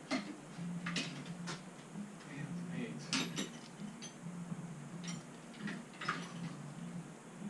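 Metal scooter parts and tools clinking and knocking as they are handled, a string of separate sharp clicks, the loudest about three seconds in, over a low steady hum.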